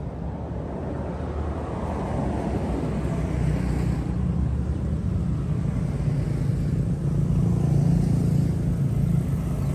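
A motor vehicle engine running with a steady low rumble, growing gradually louder.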